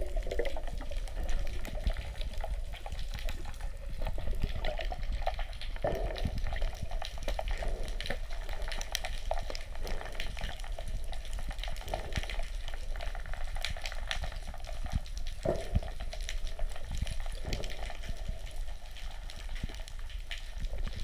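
Underwater sound picked up by a camera submerged in the sea: a steady muffled rush of water with a burst of bubbles near the start and scattered crackles and clicks throughout.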